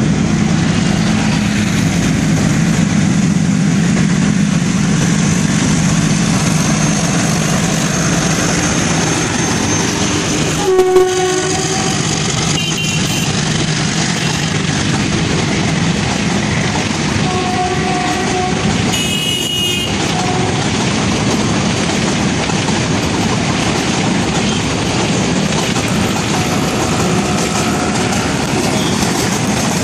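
YDM4 metre-gauge diesel locomotive's engine running as it approaches and passes, then the passenger coaches rolling by with a steady clickety-clack. The locomotive horn sounds once, briefly, about a third of the way through, and a few shorter high tones follow some seconds later.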